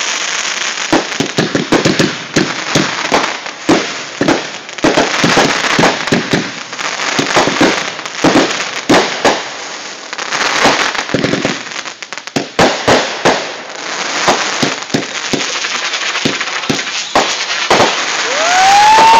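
Fireworks going off in a rapid, dense barrage of bangs and crackling, with a brief lull about two-thirds of the way through. Near the end a loud, high-pitched shout rises in over it.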